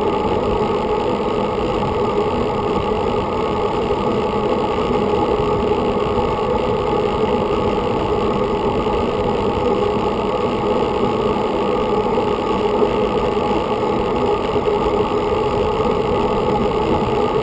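Steady rush of wind and road noise picked up by an action camera on a road bike's handlebars as the bike rolls along smooth asphalt.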